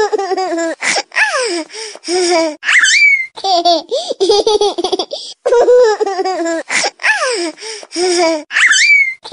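A recorded baby's laugh, the same few-second clip playing over again, about every six seconds. Each run ends with a short rising squeal.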